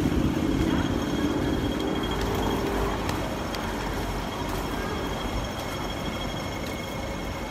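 Hong Kong double-decker tram running on its street tracks amid steady city traffic noise. A low rumble is loudest at the start and fades over the first few seconds.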